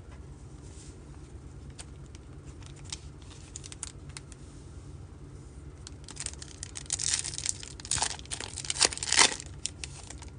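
Trading card pack wrapper from a Topps Chrome Black box being torn open and crinkled by hand. A few light handling clicks come first, then a dense run of tearing and crinkling from about six to nine and a half seconds in.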